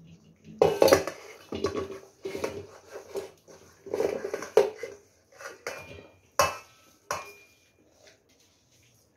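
Stainless-steel mixing bowl knocking and scraping against the rim of a heavy, thick-bottomed steel pot as a wet spiced jackfruit mixture is scraped from one into the other by hand. There is a run of clattering bumps, with a sharp clank about six seconds in and another a moment later, before it quietens.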